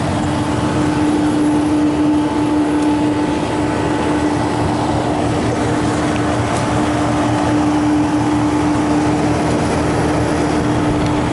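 Walk-in freezer condensing unit running, its compressor and condenser fan making a steady hum with a constant mid-pitched tone. The fan is drawing air through a condenser coil that is still partly plugged with dust.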